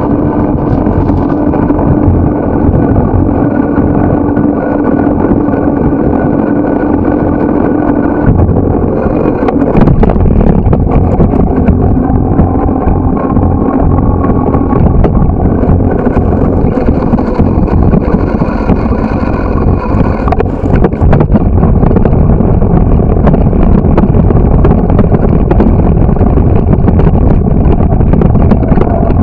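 Steady rumble and road noise on a bicycle-mounted camera, with car traffic passing on the road alongside. A few sharp knocks around ten and twenty seconds in.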